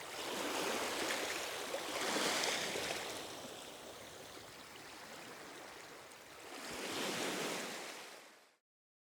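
Calm ocean waves washing ashore, the surf swelling up three times, then fading out near the end.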